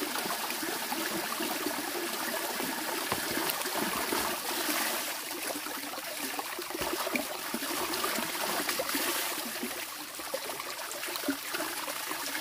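Water running and trickling steadily, with small irregular splashes.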